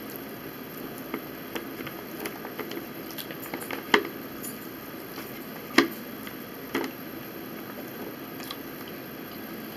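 Metal forks clicking and scraping against plastic bowls during a meal: scattered light taps, with three sharper clicks around the middle, over a steady background hiss.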